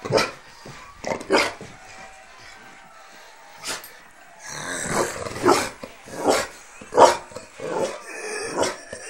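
Dog barking and growling in about ten short bursts, with a lull of a second or two near the middle.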